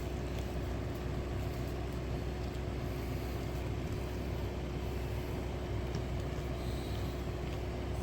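Steady machine hum holding one constant mid-pitched tone over a low drone, with a few faint ticks.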